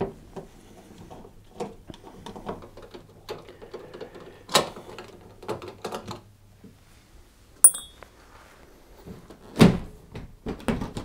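Screws being undone by hand from the back of a tumble dryer's top panel, a run of small clicks and scrapes, with a sharp metallic click near eight seconds. About nine and a half seconds in, a heavier knock as the top panel is shifted to lift it off.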